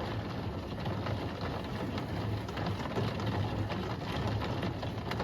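Steady rain during a thunderstorm: a dense patter of drops.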